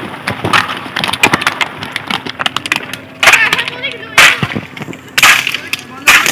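Dry twigs and branches snapping and cracking again and again during tamarind picking, with a few louder crashes of shaken branches about a second apart.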